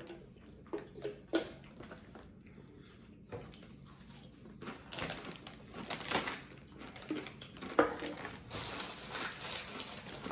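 Eating and handling of takeout food at the table: scattered clicks and soft crunching, then a busier run of crackling and rustling from about halfway, with one sharper click about three-quarters through.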